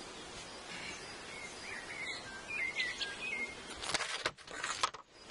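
Small birds chirping in the background, then about four seconds in a short burst of loud rustling as the bee suit's fabric brushes against the microphone.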